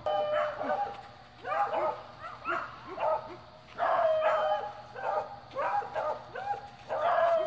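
Dog barking and yipping, short pitched calls in quick runs about once a second.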